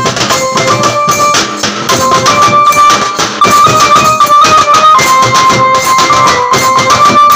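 A street band plays: a small electronic keyboard carries a melody of held notes stepping up and down over the beat of large bass drums struck with sticks.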